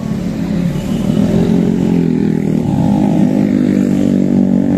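A motorcycle engine running close by, loud and steady, its pitch rising a little about a second in.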